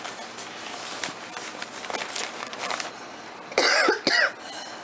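Crumpled packing paper rustling in a cardboard box, then two short loud coughs a little past three and a half seconds in.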